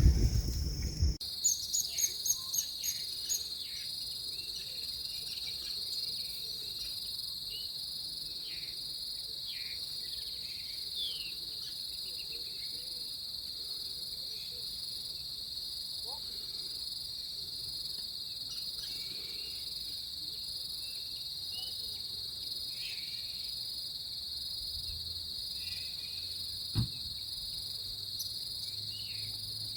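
A steady, high-pitched chorus of insects trilling without a break, with faint short chirps beneath it. There is a single soft knock near the end.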